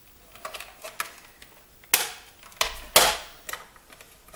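Hands handling the plastic case of a Timex Sinclair 1000 computer and working at its plugged-in cable: a series of sharp clicks and knocks, the loudest about two and three seconds in, the last of these with a dull thump.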